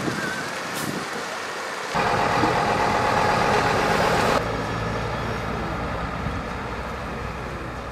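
Diesel engine of a fire-rescue truck pulling out and driving away. It is loudest for a couple of seconds after a sudden start about two seconds in, then drops off sharply and runs on more quietly.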